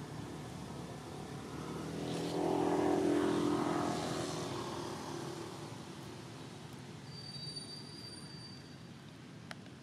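A motor vehicle passing by: its engine grows louder for about two seconds, peaks, then fades away.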